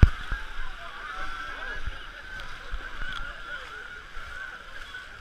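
Chatter of a large crowd on a beach with water splashing as people wade through shallow sea water. A sharp bump sounds right at the start, with a few duller thuds after it.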